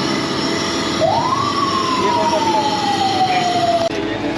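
A siren in the street: a single wail that sweeps up quickly, then slides slowly down for about three seconds before cutting off, over steady street noise and a low machine hum.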